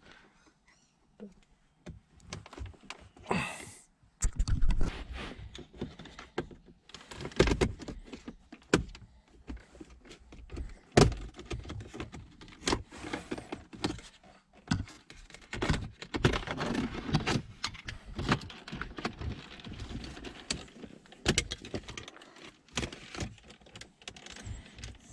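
Plastic centre-console trim being pried loose with a thin plastic card: scraping as the card slides under the gear-selector surround, with irregular sharp clicks and knocks as the trim's retaining clips give.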